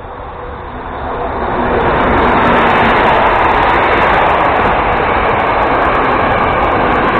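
A diesel-hauled passenger train passing close by: the V100-type diesel locomotive hums as it comes up, and the sound builds over the first two seconds into the steady rumble and rattle of the coaches rolling past on the rails.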